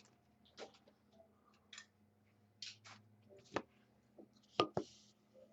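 Faint, irregular clicks and soft rustles of trading cards being handled, about ten light taps and slides, the sharpest a little past the middle.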